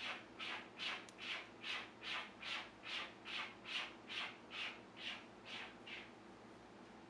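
A run of about sixteen quick, even scratching strokes, roughly two to three a second, that stop about six seconds in.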